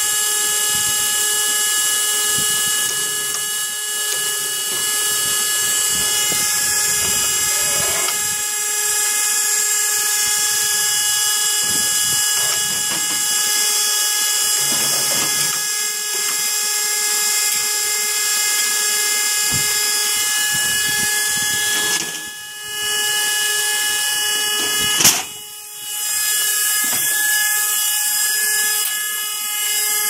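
Electric log splitter's motor and hydraulic pump running with a steady, high drill-like whine. Twice near the end it briefly drops away, the second time right after a sharp click.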